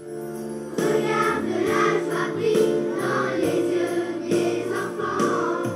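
Children's choir singing a song over a musical accompaniment with a steady beat, coming in louder about a second in.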